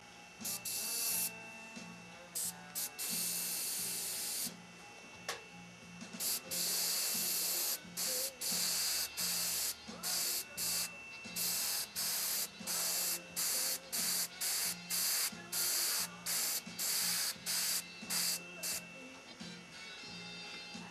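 Airbrush spraying paint in a long series of short hissing bursts as the trigger is pressed and released, with a few longer sprays in the first half.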